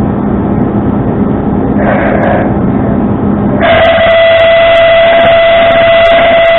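Tow truck running with a low steady hum, then about three and a half seconds in a loud, steady high-pitched whine cuts in and holds.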